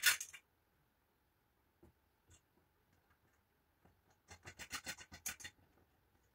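Aluminium extrusion profiles and frame parts scraping and rubbing against each other as they are fitted together by hand: one sharp scrape at the start, a few light ticks, then a quick run of short scratchy rubs about four seconds in.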